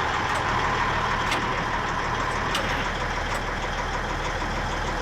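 An engine running steadily at idle, with faint ticks about once a second.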